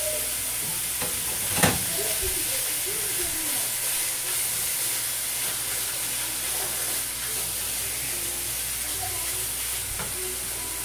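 Minced meat sizzling in a frying pan while being stirred with a wooden spatula, with a steady hiss. A sharp knock, the spatula against the pan, comes about one and a half seconds in, and a lighter one near the end.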